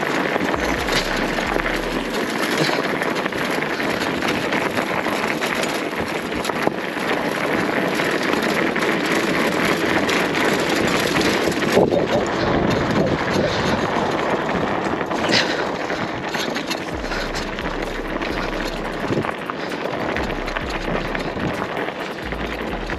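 WaltX Dune 1 fat-tyre bicycle rolling over a gravel dirt track: a steady crunch of the wide tyres on loose stones, with many small clicks and knocks, and wind on the microphone.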